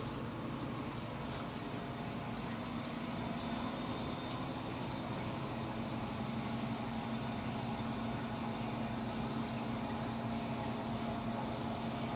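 Steady machine hum with a constant low tone, getting slightly louder a few seconds in.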